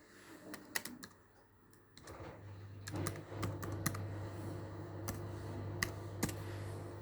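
Typing on a laptop keyboard: irregular, separate keystroke clicks. A low steady hum comes in about two seconds in.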